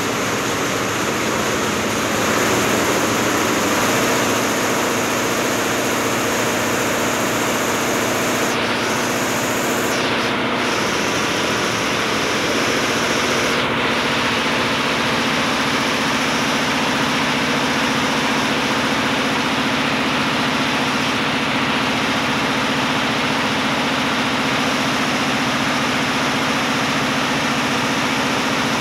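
Multi-head Sinsim computer embroidery machine running steadily at about 930 rpm, its row of needle heads stitching together in a dense, continuous mechanical din.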